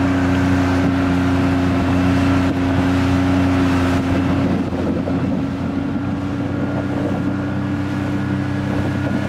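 Outboard motor of a small aluminium fishing boat running steadily under way, a constant engine drone with water and wind rushing past. About halfway through, the engine tone sinks under the rushing noise.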